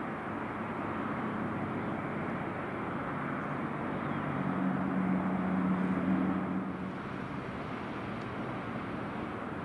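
Distant light-aircraft piston engines running on the ground over a steady hiss; the engine hum swells louder for about two seconds near the middle, then drops back.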